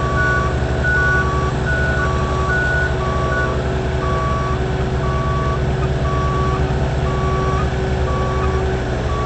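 A diesel engine running steadily close by, with backup alarms beeping about once a second. A second, higher-pitched alarm alternates with the first and stops about three seconds in.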